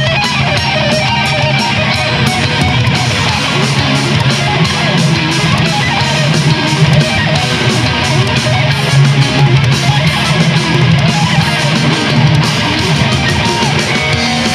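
Live heavy-metal shred instrumental: two electric guitars playing fast lead lines through amplifiers, loud and continuous over a steady low backing.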